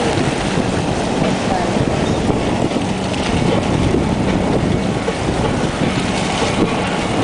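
Wind on the microphone and rushing water from the wake of a sailing yacht under way: a steady, loud noise.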